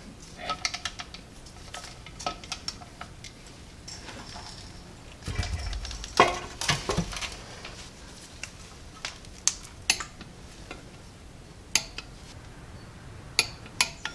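Metal tools and parts clinking and clattering during hand work on a car's clutch assembly, scattered clicks with some short ringing, and a louder cluster of knocks and clatter around the middle.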